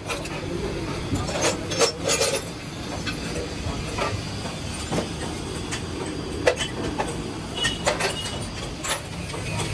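Steady low machinery rumble with scattered light knocks and clicks, about a dozen of them; the disc grinder is not running.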